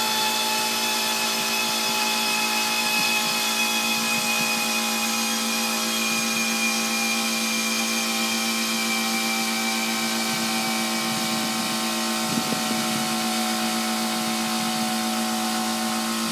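Air conditioner running with a steady, loud tonal hum: a strong low tone with a stack of higher overtones, its pitch sinking slightly over several seconds. A noise its owner calls weird.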